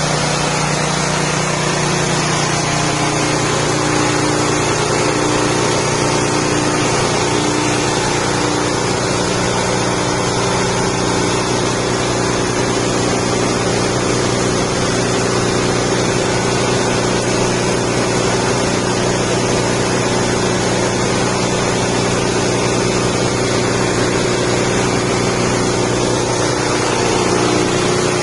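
Rice-husk grinding machine running steadily, driven by its 6.5 hp petrol engine: a constant engine hum under a dense rushing noise.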